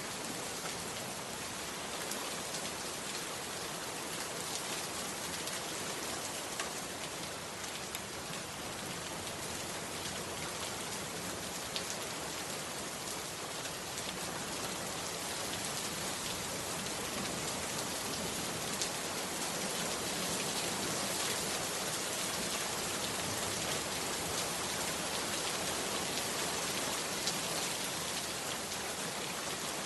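Heavy rain falling steadily, with a few sharp single drops standing out. It grows slightly louder in the second half.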